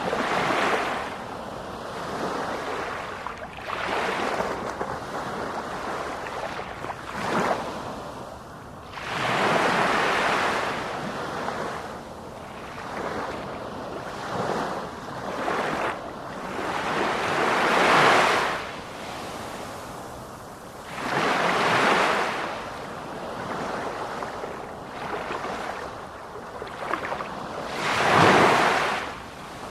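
Sea waves breaking and washing in, one surge of rushing water after another every few seconds, some swells much louder than others.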